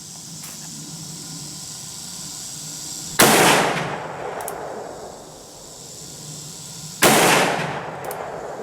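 Two shots from a Ruger Single-Seven Bird's Head revolver in .327 Federal Magnum, about four seconds apart. Each is a sharp crack with a ringing tail that dies away over a second or two.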